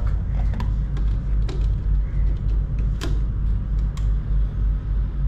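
A steady low mechanical hum, with a few sharp clicks about a second and a half, three and four seconds in as a phone charger is plugged into a wall socket.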